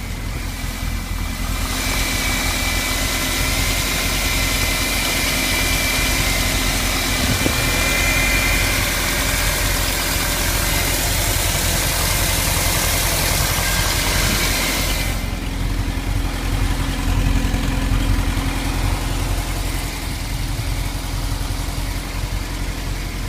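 1991 VW Vanagon Syncro's 2.1-litre water-cooled flat-four engine running just after a cold start. A hissy, louder stretch with a faint high whine runs from about two seconds in, then eases off about fifteen seconds in.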